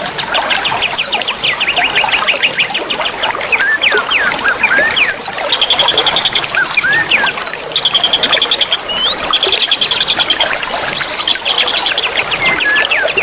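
A group of young wild songbirds chirping and twittering together in a dense chorus. Several birds call at once, mixing quick repeated trills with short upward-sweeping chirps. It is a bird-keepers' therapy recording, meant to set caged birds singing.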